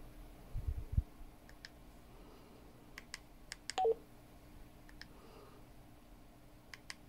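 Baofeng BF-18H handheld radio's keypad being worked through its menus: scattered button clicks and one short two-note falling key beep a little before four seconds in. A few low handling bumps about a second in are the loudest sound.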